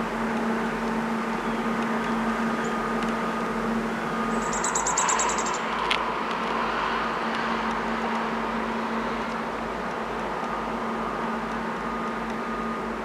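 Outdoor field ambience: a steady low hum over a background hiss, with a short, very high, rapid trill about four and a half seconds in and a single sharp click about six seconds in.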